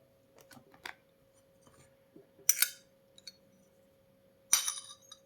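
Kitchen utensils handled against a container while ground cloves are mixed into olive oil: a few light clicks, then two short scrapes, about two and a half and four and a half seconds in.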